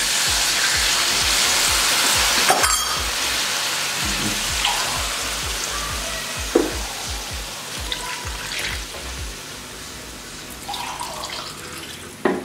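Mutton stock poured into a wok of hot oil and fried masala, hissing and sizzling loudly at first and steadily dying down as the liquid cools the pan, with a few sharp knocks of a utensil against the wok.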